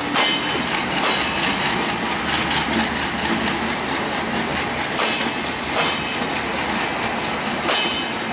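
Bangladesh Railway Intercity passenger coaches passing close by on broad-gauge track: a steady rumble of steel wheels with irregular clacks as the wheels cross rail joints, and brief high wheel squeals near the start and near the end.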